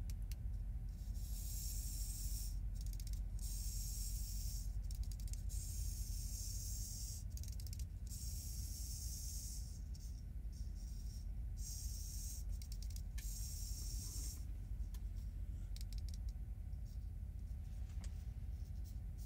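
Small clicks and rattles of a toy's plastic gearbox and axle being handled, over a steady low hum and a high hiss that comes and goes until about two-thirds of the way through.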